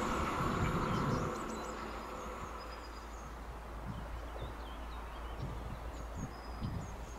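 A passing train fading away over about the first second, then faint birdsong chirps over a low wind rumble on the microphone.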